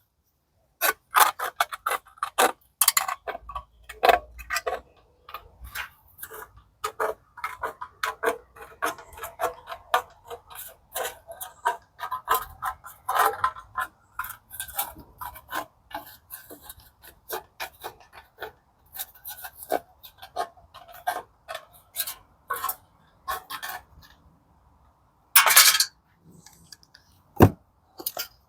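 Hand shears snipping in quick, irregular clicks, cutting a round washer shape out of a sheet, with a few louder snips near the end.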